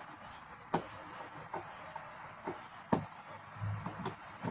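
Screwdriver working screws out of a flat-screen TV's plastic back cover: scattered sharp clicks and knocks, roughly one a second.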